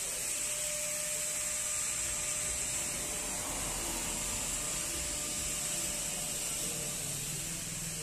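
Steady high-pitched hiss with a faint steady humming tone beneath it, unchanging throughout.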